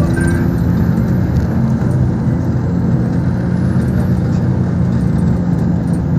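Steady engine drone and road noise of a moving motor vehicle.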